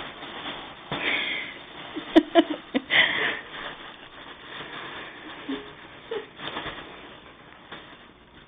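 Rustling and scuffling as cats play around a fabric cat tunnel and wand toy, in bursts about one and three seconds in, with a few sharp clicks about two seconds in.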